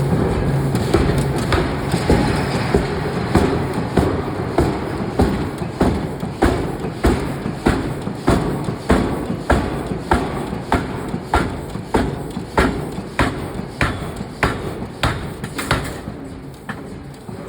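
Forging hammer striking hot steel in an even rhythm, just under two blows a second, over steady shop machinery noise. The blows stop about a second before the end.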